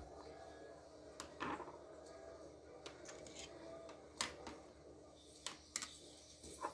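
Scattered light clicks and knocks of laptop parts being handled and set down on a tabletop, as the laptop's removed optical drive is moved aside.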